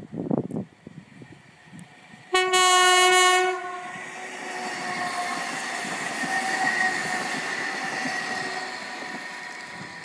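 WKD electric commuter train sounding its horn once, a loud blast of about a second, then passing by with a steady rolling noise and a high tone that swells and then fades.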